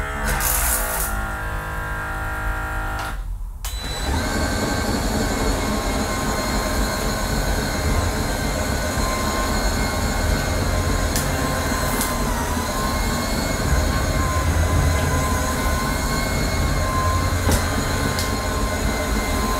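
AirCraft PowerGlide cordless hard floor cleaner running, its twin microfibre pads spinning on ceramic tiles. The motor gives a steady hum with a thin high whine and a low rumble, breaking off briefly about three and a half seconds in and then carrying on evenly.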